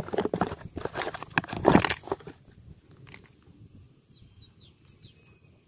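A burst of crackling and crunching for about two and a half seconds, then quiet with a few faint high chirps, bird-like.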